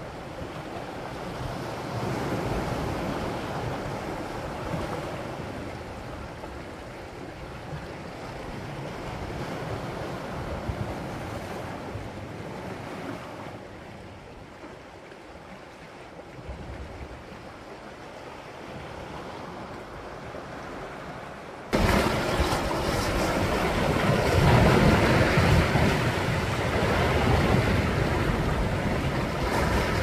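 Sea waves surging against the rocks of a beach, a steady rushing wash that swells and ebbs. About two-thirds of the way through, the sound jumps suddenly much louder and stays loud.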